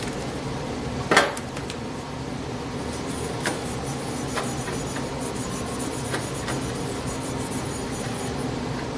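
A cloth rag rubbing and wiping inside the wrist-pin bore of an aluminium piston, with a few small clicks as the piston is handled. A single sharp knock about a second in as the cordless drill is set down on the workbench, over a steady low hum.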